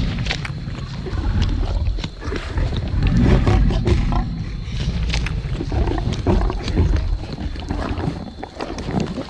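Tyrannosaurus rex sound effect: deep, rumbling growls and roars that swell and ease every second or two, with a rasping edge.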